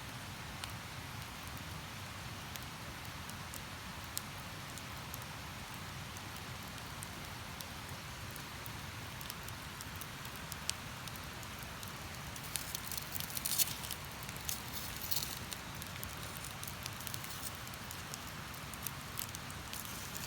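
Wood campfire crackling with scattered sharp pops, and a busy spell of crackles a little past halfway, over a steady rushing noise of flowing river water.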